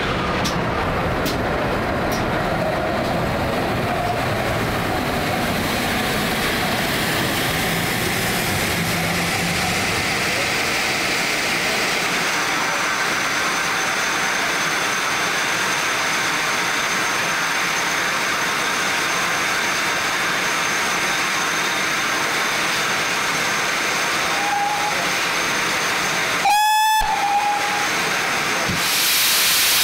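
GWR Castle class steam locomotives rolling slowly by, their low rumble fading about ten seconds in. Near the end a short pip and then a loud steam whistle blast of about a second, followed by a loud hiss of escaping steam.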